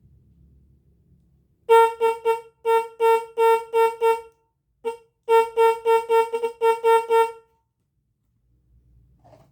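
Original horn of a Yamaha YL1/YL2 motorcycle being tested, sounded in quick short honks on one steady, buzzy pitch. There are two runs of about eight honks at three to four a second, with a single short blip between them.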